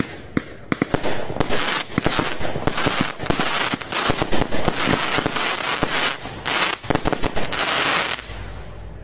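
A 100-shot 20 mm fireworks cake firing in rapid succession: a quick string of sharp shots with crackling in between, thinning out and dying down near the end.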